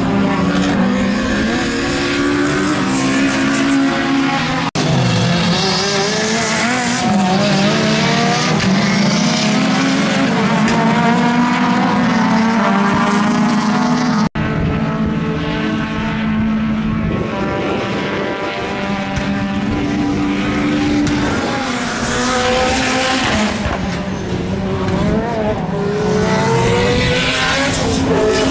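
Race car engines revving hard and rising and falling through gear changes, several cars at once, with tyre squeal. The sound breaks off sharply for an instant twice, about 5 and 14 seconds in.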